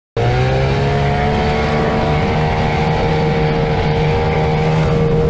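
Outboard motor on an inflatable boat running at steady high speed, its pitch rising slightly in the first second, over a steady rush of spray and wind. It cuts in abruptly just after the start.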